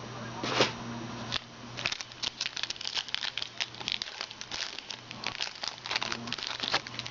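Plastic wrapping crinkling and crackling as a pack of trading cards is opened and the cards are handled, in many short, irregular crackles over a low steady hum.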